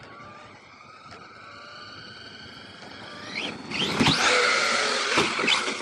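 Electric motor of an MT8 RC monster truck whining with several tones as it speeds up, the pitch climbing slowly, then turning much louder and rougher about halfway through under harder throttle.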